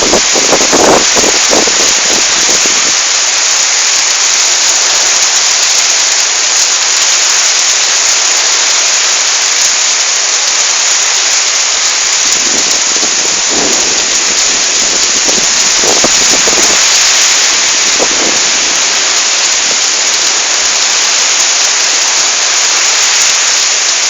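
Heavy storm rain pouring down in a steady loud hiss, with a few brief low gusts of wind buffeting the microphone in the first couple of seconds and again about halfway through.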